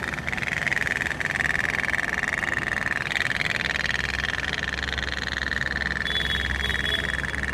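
Toy pop-pop steam boat running on the water, its heated boiler and tubes making a rapid, steady putt-putt rattle.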